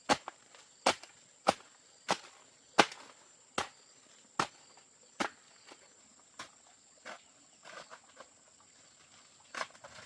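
A run of sharp chopping strikes, roughly one every 0.7 seconds, loud at first and growing fainter after about halfway. A steady high insect drone runs underneath.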